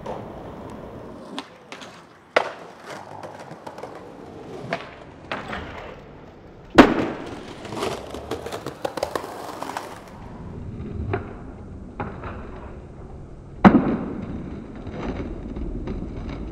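Skateboard wheels rolling over stone and concrete paving, broken by sharp board impacts: a smaller one about two seconds in, the loudest about seven seconds in followed by a few seconds of rolling, and another loud one near the end, from landing or slamming the board down in attempts on a stone ledge.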